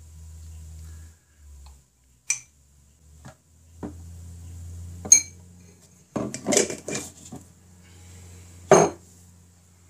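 A silver spoon clinking against a glass honey jar and a glass bowl while honey is scooped. There are two sharp ringing clinks, a quick run of knocks and scrapes a little past halfway, and one loud knock near the end, over a low steady hum.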